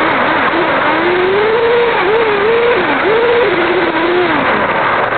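Kyosho RC model car's motor revving up and down several times as the car drives, with a steady rush of wind and road noise on the car-mounted camera. The pitch holds steadier for a moment near the end, then drops away.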